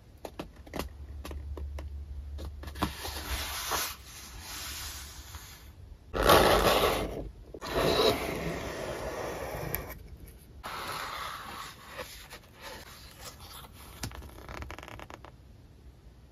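Cardboard mailer box handled and opened by hand: cardboard scraping and rustling, loudest about six and eight seconds in, followed by softer paper rustling and small taps as the cards inside are handled.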